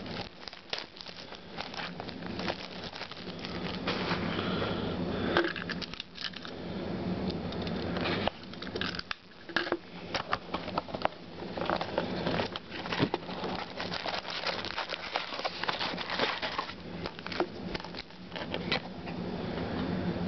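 Foil-wrapped trading card packs crinkling and rustling as they are handled and stacked, with many irregular small clicks and taps.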